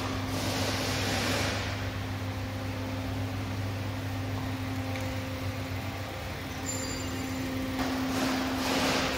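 Car repair workshop ambience: a steady mechanical hum from running shop machinery. A burst of hiss comes in the first second or so and another near the end.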